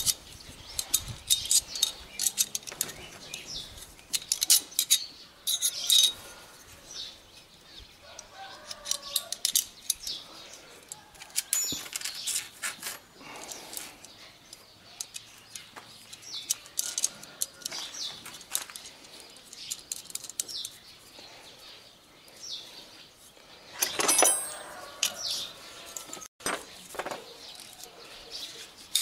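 Irregular metallic clicks and clinks of hand pliers working a connector onto a welding lead, with birds chirping in the background.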